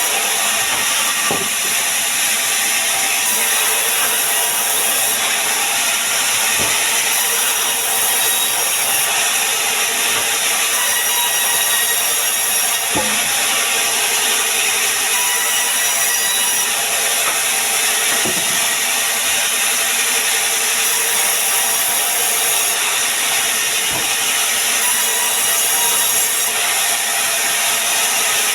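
Sawmill saw cutting through pine wood, a steady, unbroken cutting noise, with a faint knock every five or six seconds.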